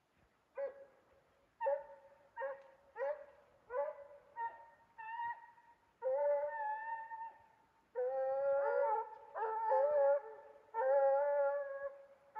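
Redbone hounds baying on a mountain lion's trail: a run of short chop barks, then long drawn-out bawls from about halfway, with two voices overlapping near the end.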